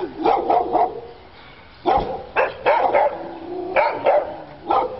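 A dog barking repeatedly in short clusters of two or three barks, about ten barks in all.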